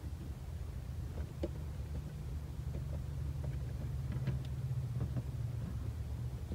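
A few light clicks as the ignition lock and steering-column parts of a van are handled and fitted, over a steady low hum.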